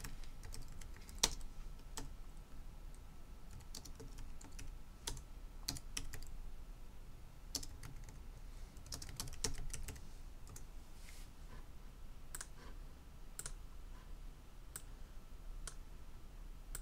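Computer keyboard being typed on in scattered, irregular taps, with the odd sharper click, as a folder name is entered.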